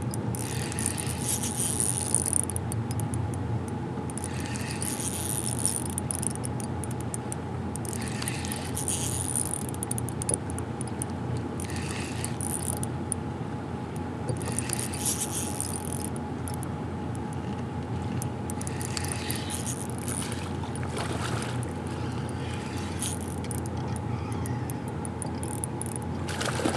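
Steady rush of flowing river water around a kayak, with short high whirring bursts every couple of seconds from a baitcasting reel being cranked while a smallmouth bass is played in.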